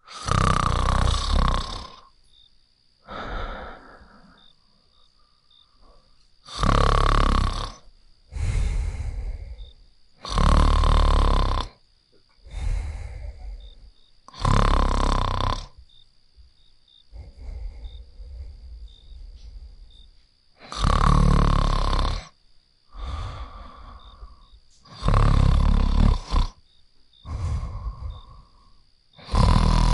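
Loud snoring: a snore every two to four seconds at an irregular pace, each lasting one to two seconds, over a faint steady high whine.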